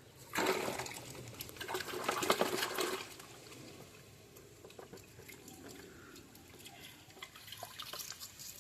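Water rushing and splashing for about three seconds, then a quieter stretch of trickling with small metallic clicks.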